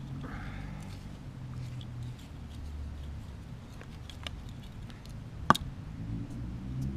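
A hand trowel digging and stirring loose potting soil in a pot: soft scratching and rustling with scattered small ticks, and one sharp click late on.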